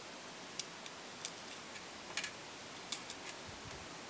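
A few faint, sharp clicks spread out, of small glass seed beads (size 11/0 rocailles) being picked up on a beading needle and strung onto the thread.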